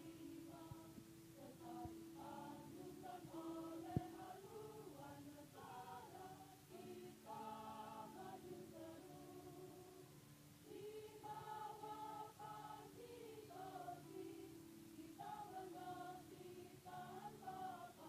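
Women's choir singing a march, faint at this level. A single sharp click about four seconds in.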